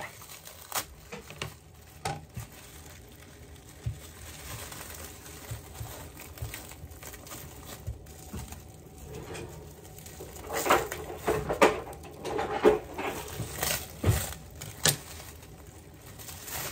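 Plastic wrap crinkling and rustling as a log of cookie dough is pulled out of it, with scattered light knocks on the countertop. The rustling grows busier and louder about two-thirds of the way in.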